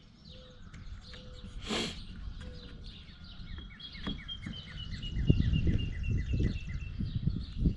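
Birds chirping, with a run of short, repeated falling notes through the middle of the stretch. A single sharp click comes about two seconds in, and low knocks and rustles follow in the second half.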